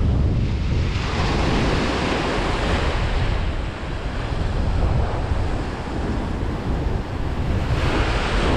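Small surf breaking and washing up a sandy beach, the noise swelling and easing as the waves come in, with wind buffeting the microphone as a steady low rumble underneath.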